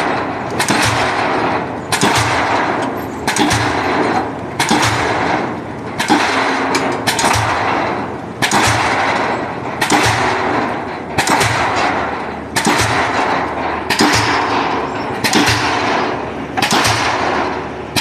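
A pile-driving hammer striking a pile in a steady rhythm, about one blow every second and a quarter. Each blow is a sharp bang followed by a ringing, clanging decay, with a steady machine hum underneath.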